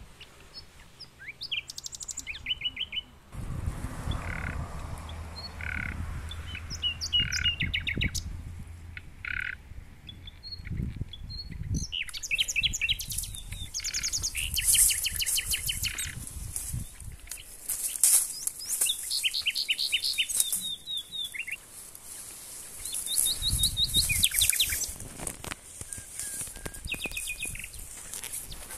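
Several songbirds chirping and giving fast trills. From a little before halfway, dry stalks rustle and crackle as a knife cuts stinging nettles.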